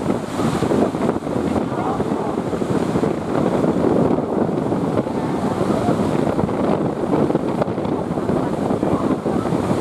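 Sea surf and wind buffeting the microphone, a steady loud rush.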